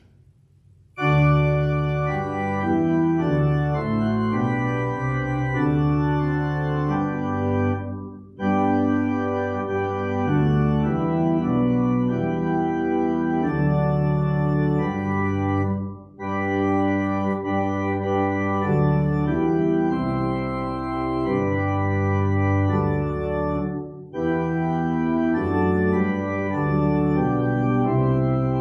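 Church organ playing held chords, beginning about a second in, in phrases of about eight seconds separated by brief breaks.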